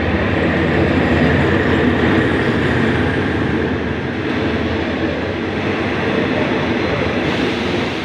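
Diesel-hauled passenger train pulling into the station: the locomotive passes close by, loudest about a second in, then the passenger coaches roll past steadily on the rails.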